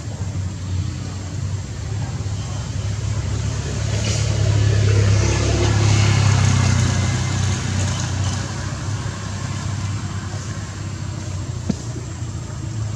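A motor vehicle's engine running with a low steady hum. It swells louder about four seconds in and eases off again after about seven seconds, like a vehicle passing. There is a single faint click near the end.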